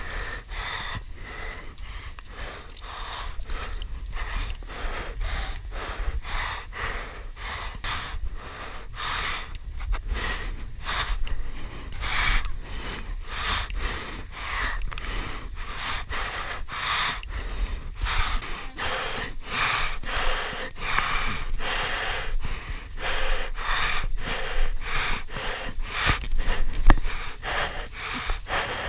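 A person breathing hard and fast, about two breaths a second, close to the microphone, over a steady low rumble.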